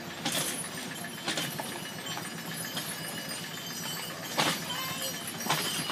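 Horse pulling a cart, its hooves clopping and its harness bells jingling, with sharp clinks about a second apart.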